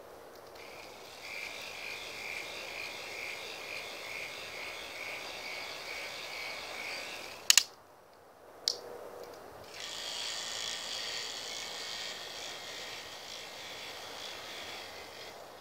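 Electric motor and plastic gear train of a K'NEX swing ride running with a steady, pulsing whirr. About halfway through it is broken by two sharp clicks, a short lull and one more click, then the whirr resumes.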